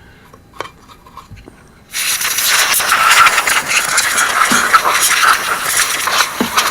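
Dust being cleaned off the chassis of a Galaxy tube ham radio. A few faint ticks, then about two seconds in a loud, rough hissing scrub starts suddenly and keeps going, fluctuating.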